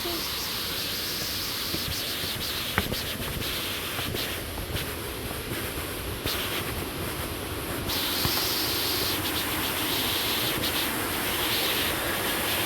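Steady rush of a waterfall, getting louder about eight seconds in.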